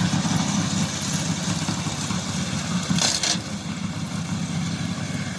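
Gasoline engine of a remote-controlled slope mower running steadily, with a brief hissing rush about three seconds in.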